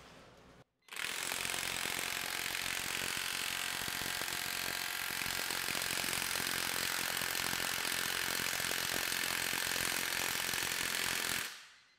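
DeWalt DCF899 cordless brushless high-torque impact wrench hammering steadily in reverse against a loaded bolt on a torque rig. It starts about a second in and keeps up a fast, even run of impacts for about ten seconds before stopping near the end.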